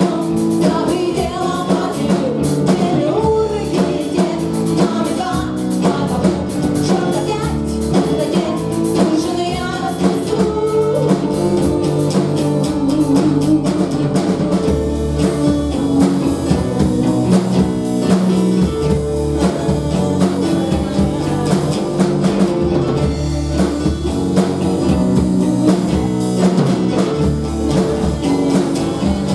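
Live rock band playing a song with singing, electric guitar, bass and a steady drum kit beat, heard through a small-venue room.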